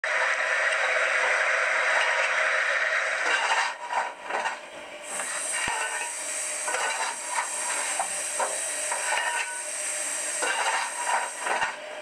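Steam locomotive sounds: a steady hiss of steam for about the first three and a half seconds, then a quieter stretch of irregular metallic clanks and knocks under a thinner hiss.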